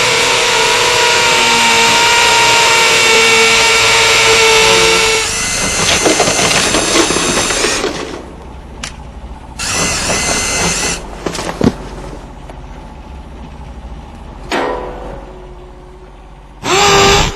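Power drill motor running with a steady whine for about five seconds, then rougher until about eight seconds in. After that it comes in short separate bursts, and the last one spins up to speed.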